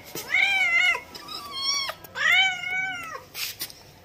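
Domestic cat meowing three times, the first and last calls long and drawn out, a shorter one between them.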